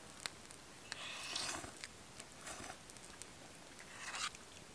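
Fork scraping and clicking against a plate while eating, with two longer scrapes, about a second in and near the end, and scattered light clicks between them.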